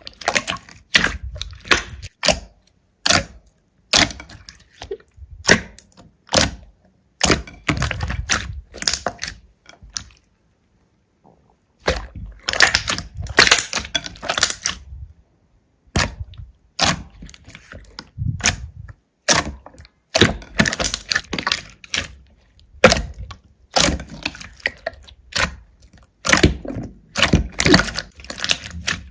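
Hands squeezing and kneading slime: clusters of sticky crackling and popping, in bursts every second or two with short pauses, and a longer pause about ten seconds in.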